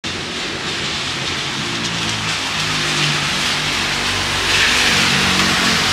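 Rain and traffic on a wet city street: a steady hiss of rain and tyres on wet asphalt over a low vehicle drone, swelling louder about two-thirds of the way through as a car approaches.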